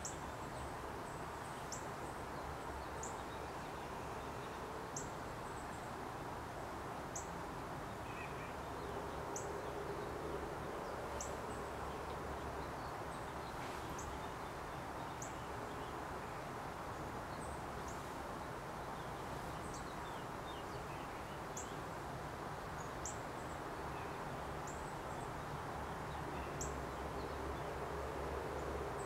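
Steady low hum and hiss of background noise, with short, faint, high-pitched chirps recurring every one to two seconds.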